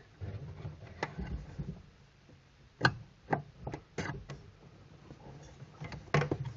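Clutch linkage being worked through a hole in the firewall: about half a dozen sharp clicks and knocks, irregularly spaced, over low handling noise.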